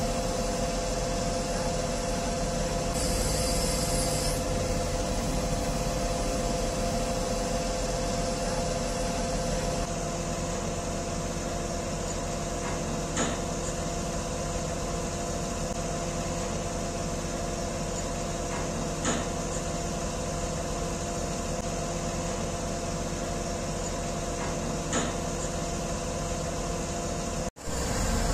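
Truck crane's engine and hydraulics running with a steady hum and whine. The whine shifts to a lower pitch about a third of the way through, and there are faint ticks every few seconds.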